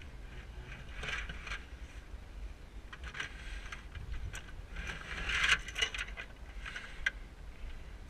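Scraping, rustling and knocking as a climber's gloved hands and clothing rub and bump against the edge of a roof hatch while he pulls himself up through it. The noises come in irregular bursts with a few sharp clicks, loudest about five and a half seconds in, over a low steady rumble.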